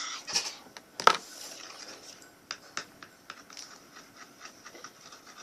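Homemade glue-and-water slime being stirred and scraped in a container: scattered scraping and small clicks, with one sharp knock about a second in.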